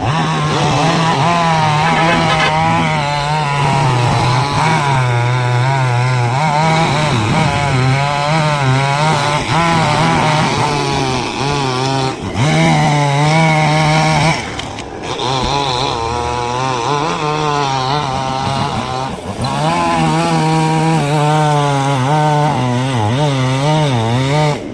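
Chainsaw running and cutting through wood, its engine pitch wavering up and down as it works in the cut, with short dips about twelve, fifteen and nineteen seconds in.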